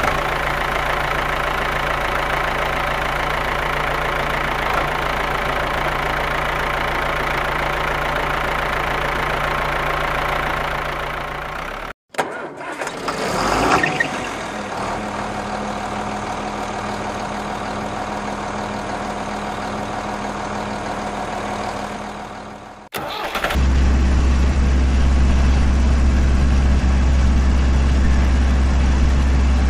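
Engine running steadily, in three stretches broken by short cuts about 12 and 23 seconds in; the second stretch opens with a rising start-up surge, and the last is louder and deeper.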